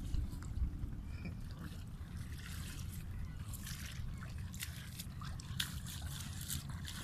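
Shallow river water sloshing and trickling as a man wades through it with a lifted bamboo-framed push net, with a run of short splashes and drips from about two and a half seconds in.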